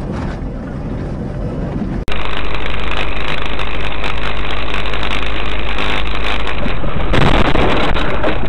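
Loud, steady rumble and wind noise of a moving vehicle. It cuts out abruptly about two seconds in and restarts at once, louder, then swells briefly about seven seconds in.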